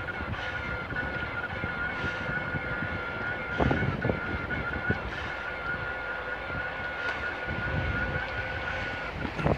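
Askoll electric two-wheeler on the move: a steady high whine from its electric motor over low wind rumble on the microphone, with a few knocks, the loudest about three and a half seconds in.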